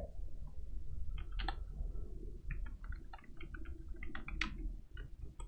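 Computer keyboard keys clicking in quick irregular runs as a search query is typed, over a low steady hum. The typing starts about a second in and stops near the end.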